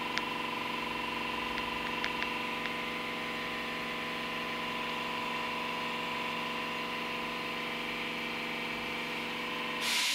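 Steady electrical buzzing hum made of several fixed tones, with a few faint clicks in the first three seconds. Near the end a short loud burst of hiss comes, and the hum then stops abruptly.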